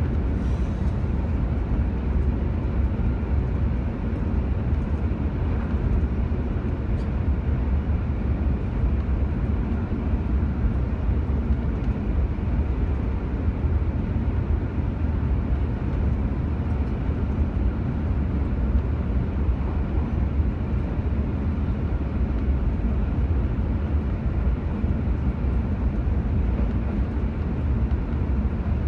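Steady low road and engine rumble of a car driving, heard from inside the vehicle.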